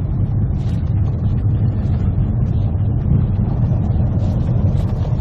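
Ford Mustang Bullitt's 5.0-litre V8 running at low speed, heard from inside the car as a steady low engine drone with road noise.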